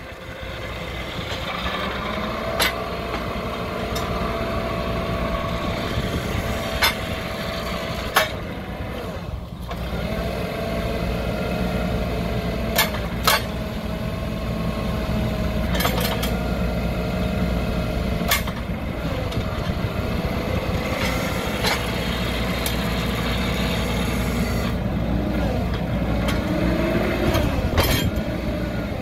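Caterpillar C5000 forklift engine running steadily while the hydraulics work the paper roll clamp: a whine comes and goes in stretches of several seconds as the clamp is rotated and moved. About eight sharp metallic knocks sound at intervals.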